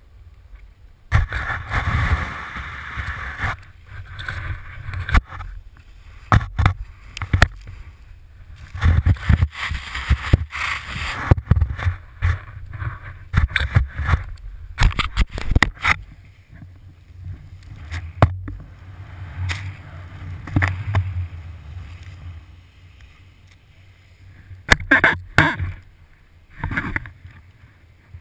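Skiing turns through deep powder snow, heard through a pole-mounted GoPro Hero: wind and snow spray rush over the camera in uneven surges with each turn. Scattered sharp knocks and clicks sound through it, and it settles for a few seconds near the end.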